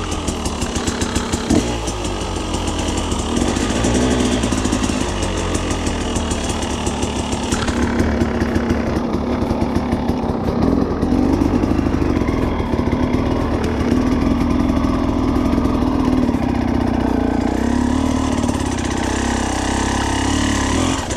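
Husqvarna TE 300 two-stroke enduro motorcycle engine running steadily at low revs, its pitch rising and falling a little.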